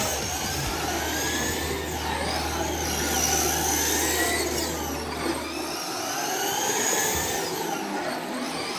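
Several RC race cars lapping the track, their motors whining in several overlapping tones that rise and fall as the cars speed up, brake and pass.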